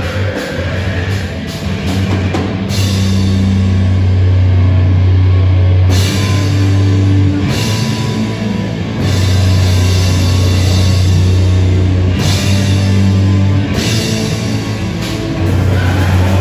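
Heavy metal band playing live: distorted electric guitars and bass with a drum kit, loud heavy riffs broken by short stops every few seconds.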